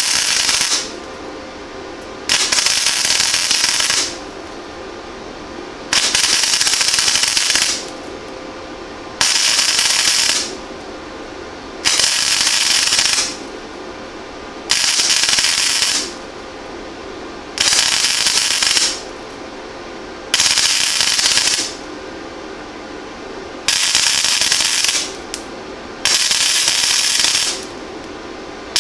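Century FC-90 flux-core wire welder laying short stitch welds on 22-gauge sheet steel, one little bead at a time: about ten arc bursts of a second or so each, roughly every three seconds, with a steady hum between them.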